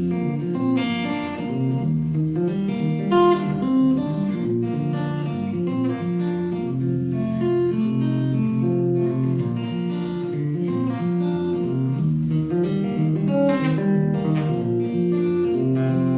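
Acoustic guitar playing a song's instrumental intro, notes changing steadily throughout.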